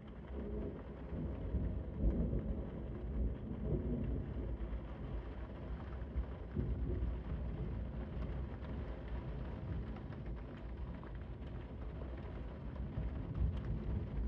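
Rolling thunder over steady rain, the low rumble swelling about a second in and strongest over the next few seconds before it eases.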